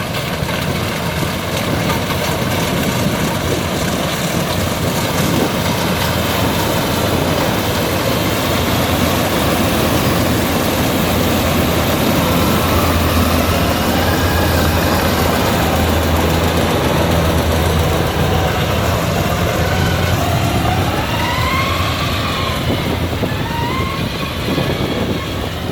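Rice combine harvester running steadily: its diesel engine and harvesting gear make a continuous loud, low hum with a broad mechanical noise over it.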